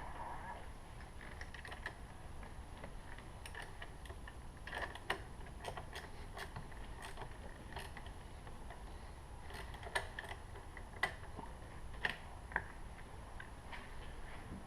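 Faint, irregular metallic clicks and taps of a 10 mm wrench working on a car's battery terminal, scattered a second or more apart with a few closer together, part of disconnecting and reconnecting the battery to get a car that won't start after a cold night to start.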